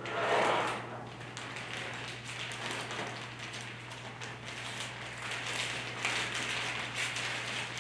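Clear plastic umbrella canopy crinkling and rustling as it is folded and wrapped by hand, a dense crackle of small clicks that keeps going.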